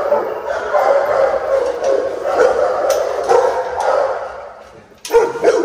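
Dogs barking without pause in a steady din that fades away about four seconds in, then a sudden loud burst just before the end.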